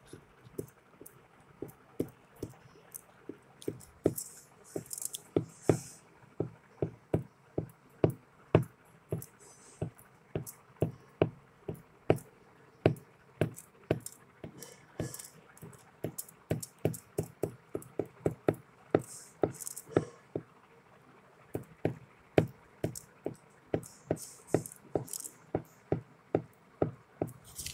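Repeated short taps, about two a second with a few brief pauses, as the nozzle of a plastic glue bottle dabs dots of glue onto a sheet of aluminium foil.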